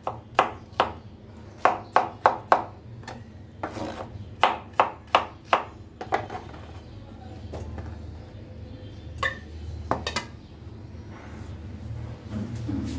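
Kitchen knife chopping peeled pineapple on a plastic cutting board: sharp knocks of the blade striking the board in quick runs of three to five through the first six seconds, then only a few single knocks later on.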